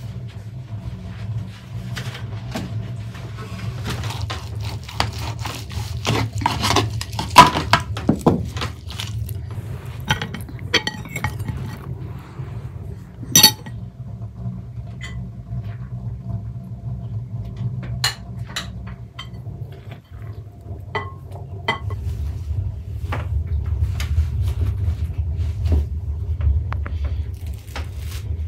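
Crockery being set out on a cloth-covered table: plates, a platter and a glass bowl set down, with scattered clinks and knocks of dishes. The sharpest is a ringing clink about halfway through. A steady low hum runs underneath and grows louder near the end.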